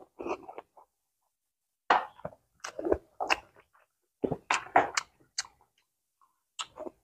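Close-miked mouth sounds of chewing soft, wet steamed rice rolls (bánh cuốn): a series of short, irregular smacks in groups, with quiet gaps between.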